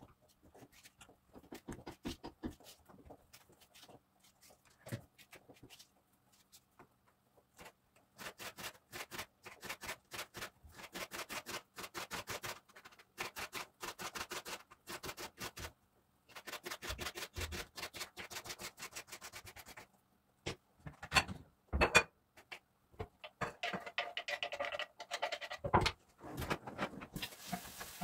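Knife chopping peppers on a cutting board: long runs of quick, even strokes, several a second, broken by short pauses, with a few louder knocks near the end.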